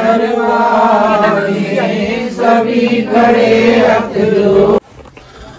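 Voices singing a devotional chant to the goddess (Mata) during a puja, with long held notes. It cuts off suddenly near the end, leaving only faint background.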